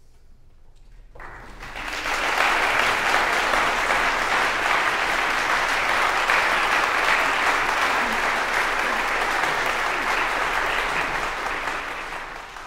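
Applause from an audience, swelling in over the first two seconds, holding steady, then fading out near the end.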